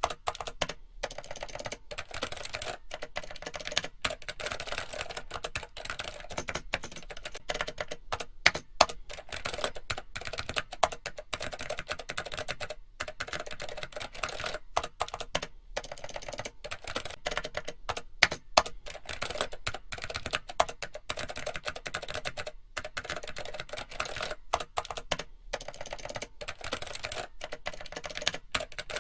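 Computer keyboard typing: rapid, continuous keystrokes with only brief breaks.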